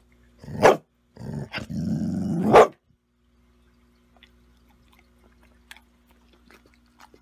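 A dog barks once, then growls for about a second and a half, the growl ending in a second loud bark.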